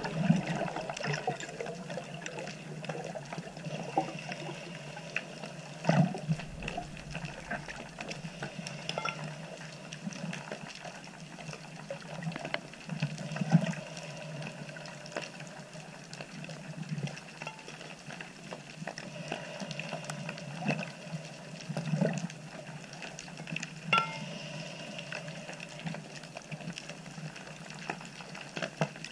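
Underwater sea ambience picked up by a submerged camera: a steady wash of water noise with scattered small clicks and pops, a few of them louder.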